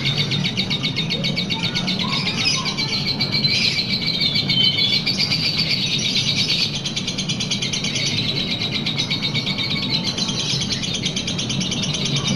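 Lovebird singing a long 'ngekek': a continuous, very fast rattling chatter of high-pitched notes, loud and shrill, going on without a break.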